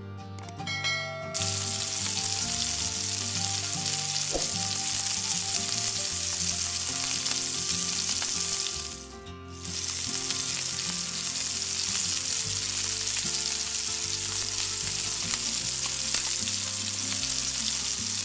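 Sliced mushrooms tipped into hot oil in a pan, sizzling as they fry and are stirred with a spatula. The sizzle starts about a second in, breaks off briefly about nine seconds in, and resumes.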